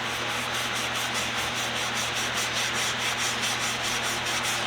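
A cloth rubbing stain into a bare wooden screwdriver handle in quick, even back-and-forth strokes, about four or five a second, over a steady low hum.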